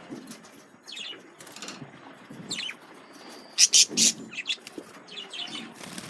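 Male budgerigars chirping and chattering in short high calls, several of them sliding down in pitch, with a burst of loud, sharp chirps about three and a half seconds in.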